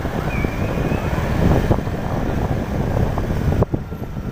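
Wind buffeting the microphone of a moving motorbike, a gusty low rumble over the sound of road traffic.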